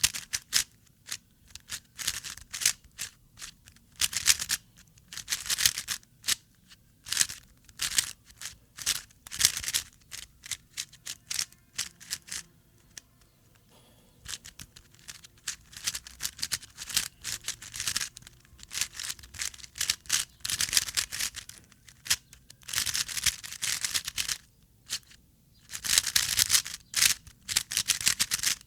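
A brand-new speedcube being turned for the first time close to the microphone: quick runs of plastic layers turning with clicks and rattles, in bursts with short pauses, and a longer pause about twelve seconds in.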